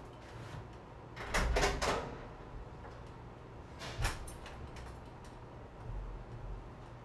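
Faint steady room hum with a few short knocks and clatters, a cluster of them just over a second in and a single one about four seconds in, like objects being handled or a door or cupboard moved off-camera.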